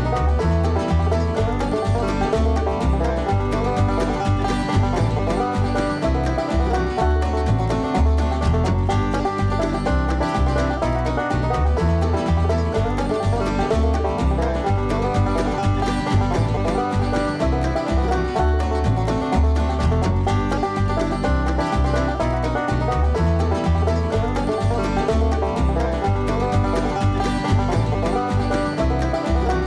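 Bluegrass-style music with banjo and a steady bass beat.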